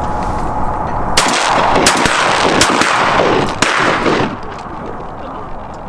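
A few distant shotgun shots in quick succession over about three seconds, each with a smeared tail, heard over a steady low rush of wind on the microphone.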